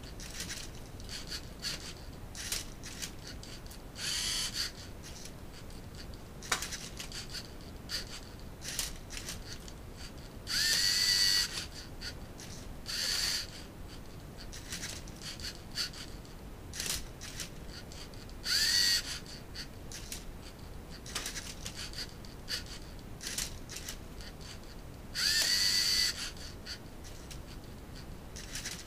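LEGO Mindstorms NXT robot motors whirring in short bursts, some rising in pitch as they start, as the machine turns and flips a Rubik's cube. Short clicks and plastic knocks from the cube and gears come between the bursts.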